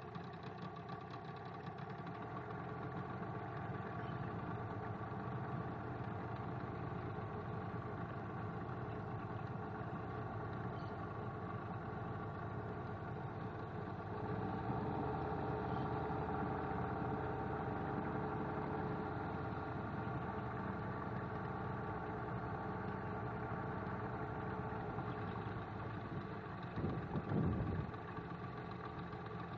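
Motorboat engine running steadily, a little louder from about halfway through. A brief low rumble near the end stands out above it.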